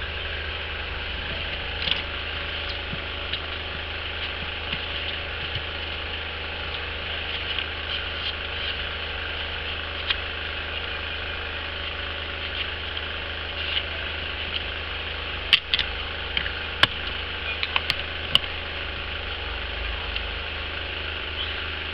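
A steady low hum and hiss of background noise, with a cluster of several sharp small clicks about three-quarters of the way through.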